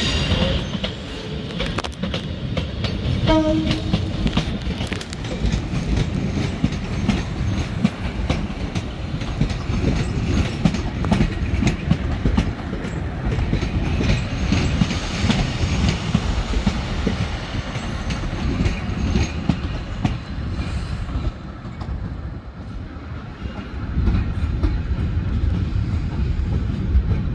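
ScotRail Class 156 diesel multiple unit running through station pointwork: a steady diesel rumble under the clicking and clatter of wheels over rail joints and points. The rumble dips about three quarters of the way through, then swells again as the next unit comes in.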